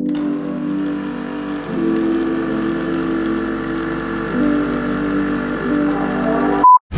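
Capsule coffee machine's pump running with a steady buzzing drone as it brews coffee into a mug, over music with sustained chords. The sound cuts off abruptly near the end.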